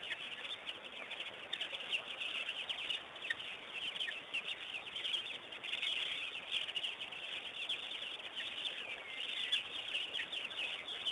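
A dense chorus of many birds chirping and calling at once, with short overlapping chirps and quick falling notes and no break.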